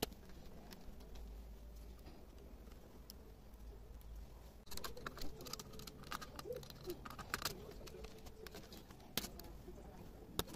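Scattered small clicks and taps from hands working on laptop parts. They come more often from about five seconds in.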